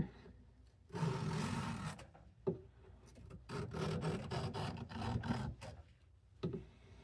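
Blade of a vintage Cattaraugus 225 Quartermaster knife being stroked across a coarse sharpening stone lubricated with WD-40: raspy strokes with pauses between them, about a second in and again from about three and a half to five and a half seconds, plus a couple of short taps.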